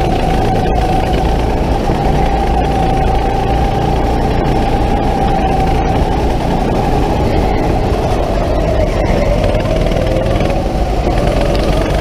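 Go-kart motor running at speed, heard from on board: a steady whine over the rumble of the kart, dropping in pitch about nine seconds in as the kart slows for a corner, then climbing again.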